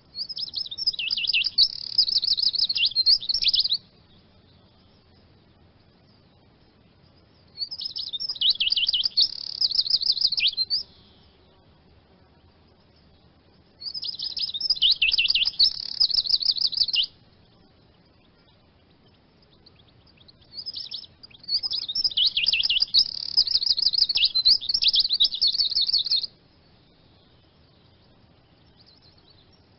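Eurasian siskin singing: four bouts of fast, high twittering song, each a few seconds long with the last the longest, separated by pauses of several seconds.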